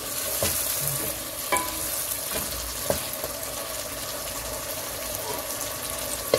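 Malabar spinach stems sizzling as they fry in oil and spice paste in a nonstick pan, with a steady hiss. A wooden spatula stirs and knocks against the pan a few times in the first three seconds, then the frying goes on alone.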